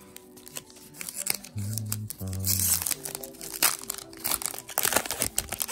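Foil Pokémon booster pack wrapper crinkling and tearing as it is ripped open, in irregular crackly bursts, over steady background music.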